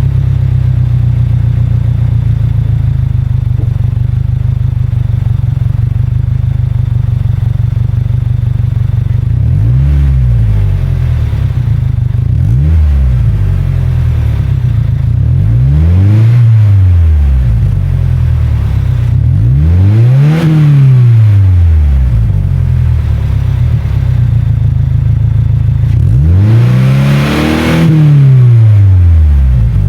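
2022–25 Subaru WRX's turbocharged flat-four engine running through a JDMuscle sport resonator midpipe, idling steadily shortly after a cold start. It is then blipped five times, each rev rising and falling back to idle, the last rev the longest and loudest.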